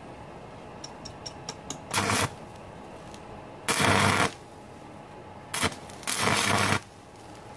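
Stick welding arc from a Daisung ARC200-MOS inverter welder set to 170 A. A few light taps as the electrode is struck are followed by three short bursts of arc crackle, each under a second long.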